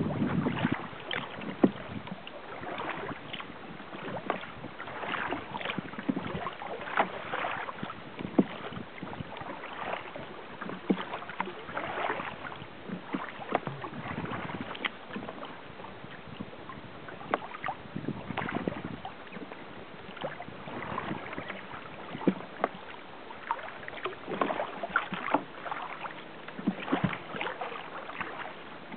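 Lake water splashing and lapping against the hull of a sail-rigged kayak under way, with irregular splashes every second or two.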